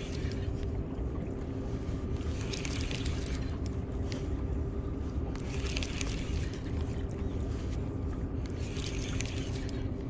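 Spinning reel cranked in short bursts about every three seconds as a jig is worked from the shore, over a steady low rumble.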